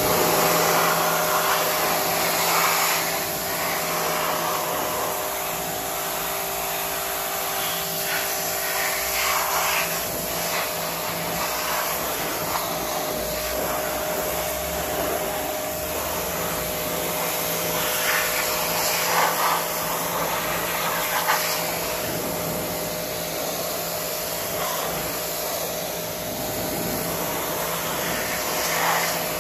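Pressure washer jet spraying onto a motorcycle drive chain and rear sprocket, rinsing off degreaser: a steady hiss of spray with the washer's motor humming underneath.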